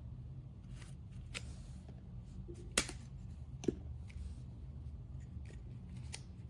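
A few sharp clicks and light rustles of something being handled, the loudest click nearly three seconds in, over a low steady hum.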